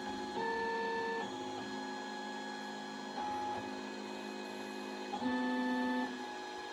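MakerBot Replicator Fifth Generation 3D printer printing with a replacement Smart Extruder. Its stepper motors whine in several steady tones that jump to new pitches every half second to a second as the print head changes moves, louder near the start and again about five seconds in.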